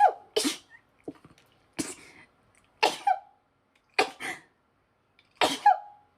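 A person sneezing over and over in a sneezing fit: five short, explosive sneezes about a second apart, several ending in a brief voiced "choo".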